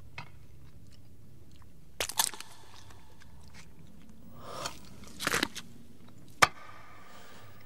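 A man eating: a few short wet bites and chewing sounds, with a sharp mouth click about six and a half seconds in, over a low steady room hum.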